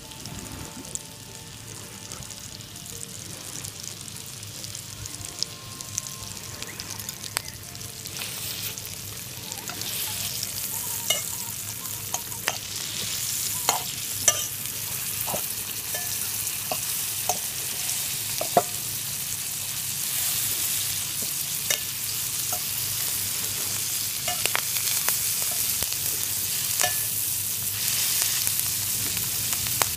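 Wild mushrooms sizzling as they fry in a skillet, the sizzle getting louder about a quarter of the way in. A metal fork clicks and scrapes against the pan now and then as the mushrooms are turned.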